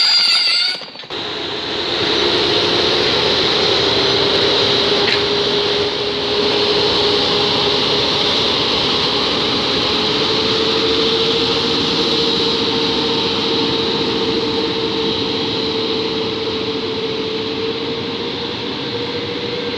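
EP09 electric locomotive moving slowly past with its train, its traction motors and cooling blowers running as a steady hum that rises slightly in pitch and then holds, with the rolling noise of the coaches.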